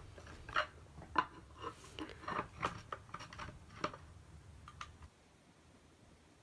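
Irregular small metal clicks and scrapes of a hex key turning a bolt on a lever-arm laminate floor cutter. They stop about five seconds in.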